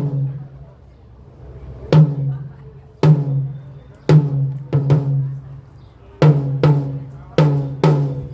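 A drum-kit tom struck alone, about nine single hits at an uneven pace, each ringing out at a steady low pitch before the next. This is a drum soundcheck, one drum at a time.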